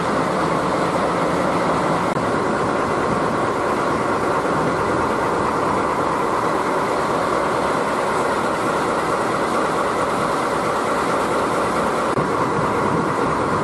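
A steady, even rushing noise from a train, with no separate beats or clear tones.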